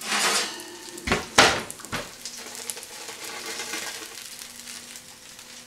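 Metal baking pan scraping and knocking against the oven rack as it is pulled out of the oven, with sharp clanks about one and two seconds in, then a faint steady sizzle of hot fat in the pan of baked meatballs over a low hum.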